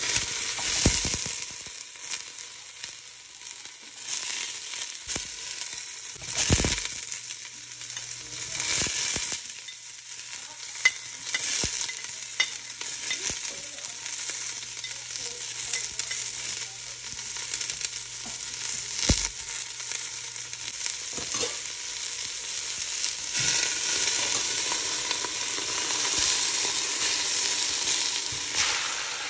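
Garlic and onion sizzling in hot oil in a stainless steel pot, with a steady hiss of frying. Short knocks and scrapes of a spatula stirring against the pot come now and then.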